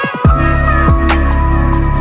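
Electronic background music with deep bass, drum hits and held synth notes, dropping into a heavier section about a quarter of a second in.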